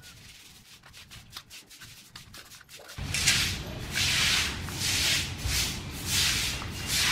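Metal forks scraping and clicking against a steel plate as cooked tuna meat is pulled apart, faint. About three seconds in, a much louder rushing hiss sets in, surging roughly once a second over a low rumble.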